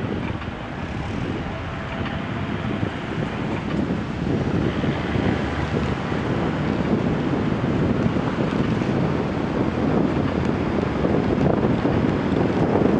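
Wind buffeting the microphone of a camera riding along on a moving bicycle, a steady rumble that grows a little louder, with city car traffic beneath it.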